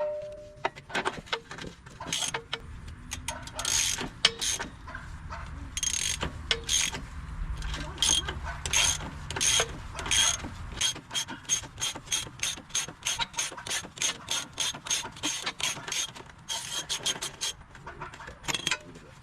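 Hand ratchet wrench clicking as a motor mount bolt is worked loose: quick runs of ratchet clicks, settling into an even pace of about two clicks a second later on.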